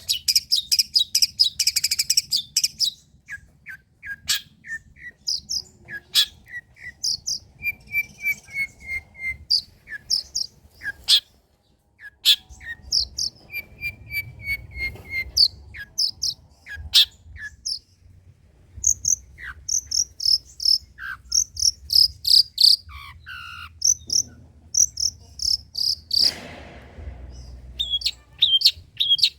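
Long-tailed shrike (cendet) singing a fast, varied song of short high chirps and trills, with runs of repeated whistled notes that step down in pitch. A harsh, rasping note comes about 26 seconds in.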